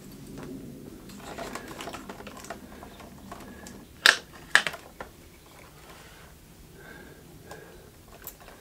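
Light clicks and rattles of a screwdriver and small parts being handled while undoing the motorcycle's battery terminals, with two sharp clicks a little after four seconds in, about half a second apart.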